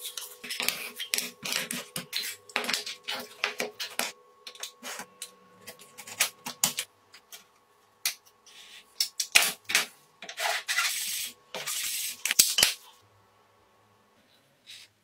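Irregular clicks, rattles and scrapes of small hard parts being handled, over a faint steady hum.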